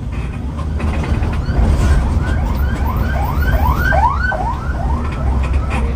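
A siren-like electronic wail of quickly repeated rising pitch sweeps, about three a second, swelling from about a second and a half in, loudest near the middle and fading near the end. It sounds over the steady low rumble of the moving bus.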